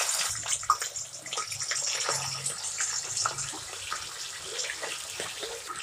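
Raw chicken pieces sizzling and crackling in hot oil in a stainless-steel kadai, just dropped in. The sizzle is loudest at first and eases off toward the end.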